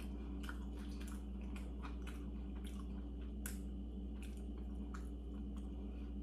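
A person chewing food with the mouth closed: soft, irregular wet mouth clicks and smacks over a steady low hum.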